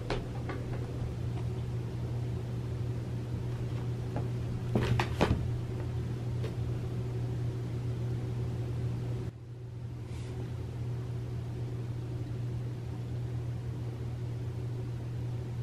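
A steady low mechanical hum, as from a fan or household appliance, with a few brief knocks about five seconds in.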